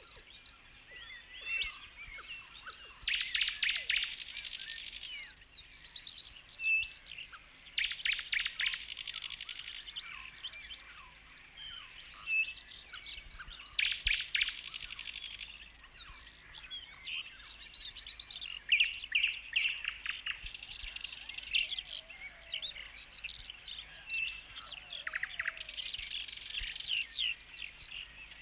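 Birds chirping, with several overlapping calls and a rapid trill that recurs every five or six seconds.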